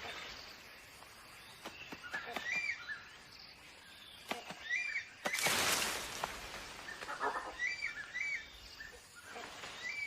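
Rainforest ambience: a bird calls again and again in short paired notes, with a brief loud burst of hiss a little past halfway.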